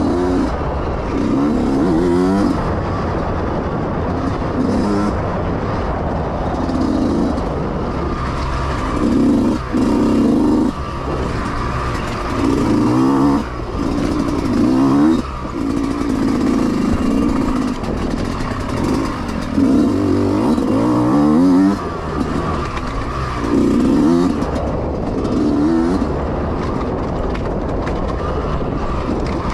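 Yamaha YZ125X two-stroke dirt bike engine under race load, revving up in repeated rising pulls that are cut off by sharp throttle chops every few seconds.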